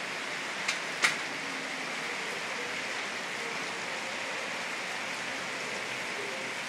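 Steady rain falling on rooftops and pavement, an even hiss, with two short clicks about a second in.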